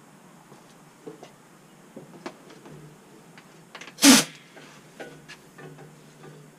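Small clicks and knocks of a power tool and socket being handled, with one short, loud hissing burst about four seconds in.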